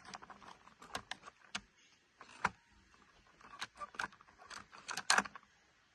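Small hard plastic toy cars being handled, giving irregular clicks and taps, with the loudest cluster about five seconds in.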